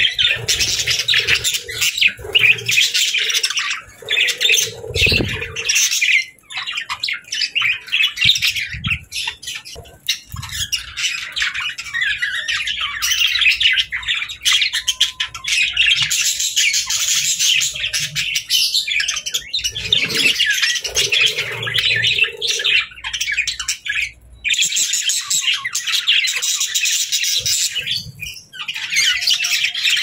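A group of budgerigars chattering: a dense, continuous run of fast high-pitched chirps, warbles and squawks, broken by a few short pauses.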